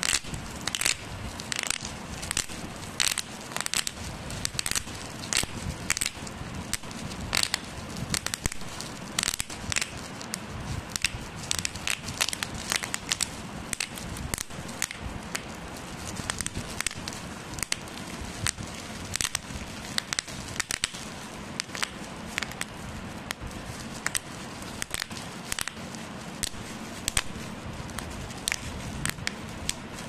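Bubble wrap being squeezed and twisted between the fingers: frequent sharp pops at an uneven pace over a continuous crinkling of the plastic.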